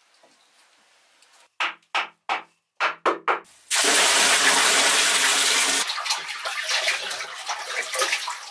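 About six short sharp sounds, then water poured from a container in one loud rushing stream into a bamboo-lined pool for about two seconds. After that, uneven splashing and sloshing as someone moves in the water.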